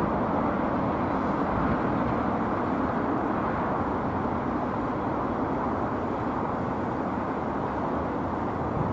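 Airbus A380-861's four Engine Alliance GP7200 turbofans, heard as a steady deep jet rumble from the airliner climbing away after takeoff, slowly fading as it recedes.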